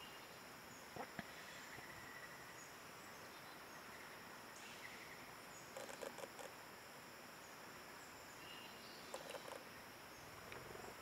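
Steady, high-pitched insect chorus, with short faint chirps now and then. A few brief clusters of soft clicks come about a second in, around six seconds and around nine seconds.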